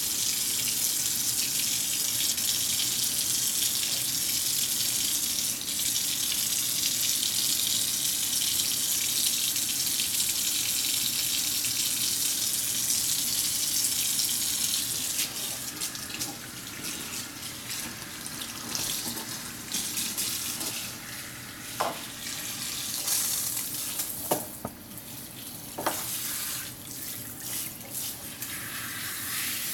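Kitchen sink faucet running in a steady stream of water. About halfway through the sound drops and turns uneven as the stream splashes over a wet cat being washed by hand.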